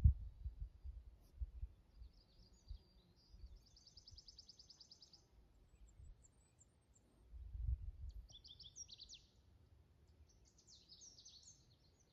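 Songbirds singing outdoors: a fast, even, high trill about four seconds in, then two short varied phrases later on. Low rumbling thuds, like wind or handling on the microphone, come at the start and again around eight seconds in.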